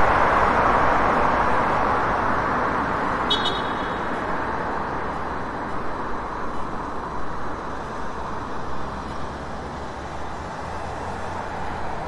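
City street traffic: a steady wash of passing cars that slowly grows quieter, with a brief high tone about three seconds in.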